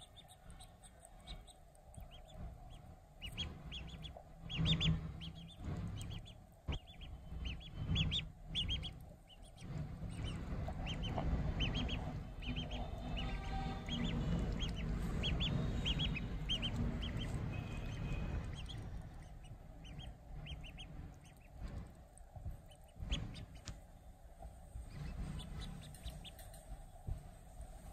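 Duckling peeping in short, high calls, again and again. A few soft knocks come early, and a louder low rumble swells through the middle.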